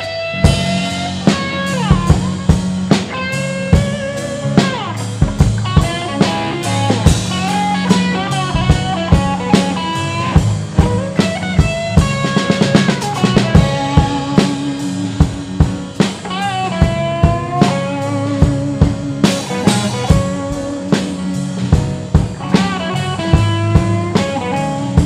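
Blues band playing an instrumental break: a lead guitar line with bent notes over a bass line and a drum kit keeping a steady beat on kick, snare and rimshots.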